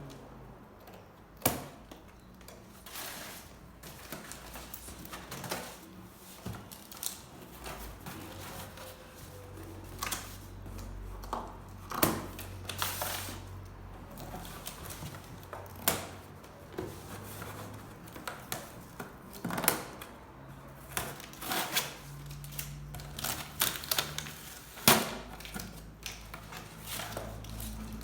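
Packaging being handled and opened: irregular sharp clicks, taps and crinkles of plastic and cardboard, with no steady rhythm.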